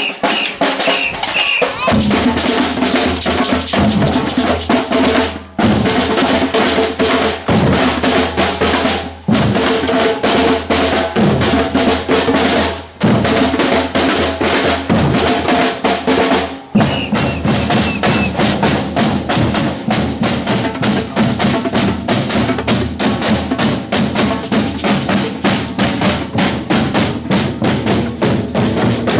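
Batucada drum ensemble playing a driving samba rhythm: bass drums, snare drums and other percussion striking fast and steady. The bass drums come in about two seconds in, and the groove breaks off briefly a few times in the first half before running on without pause.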